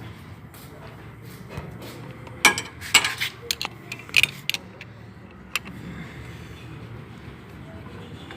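Metal hand tools clinking and tapping on a Hero Super Splendor motorcycle engine while a cover is being taken off: a run of sharp clinks about two and a half to four and a half seconds in, and one more near six seconds, over a low steady hum.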